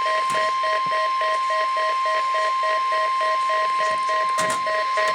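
NOAA Weather Radio 1050 Hz warning alarm tone during the weekly test of the tone alert system: one steady, unbroken high tone. Over it a separate lower beep pulses rapidly, about four times a second.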